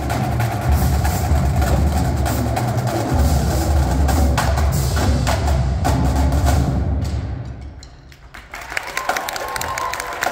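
High school marching drumline playing: snare, tenor and bass drums with cymbals, the bass drums giving strong low notes under dense rhythmic drumming. About seven seconds in the playing fades into a brief lull, then picks up again as lighter, sharp clicks and taps.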